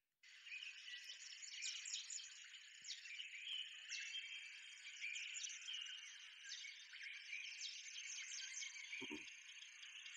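A dense chorus of many small chirps and quick whistled sweeps from birds and insects in a tropical garden. There is a soft thud about nine seconds in.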